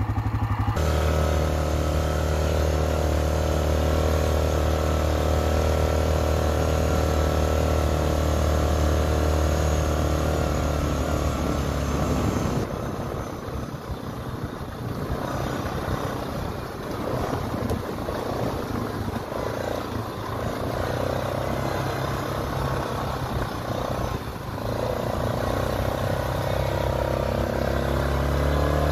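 ATV engine running: a steady idle for about the first twelve seconds, then running less evenly as it tows a stalled cross kart on a strap along a dirt trail.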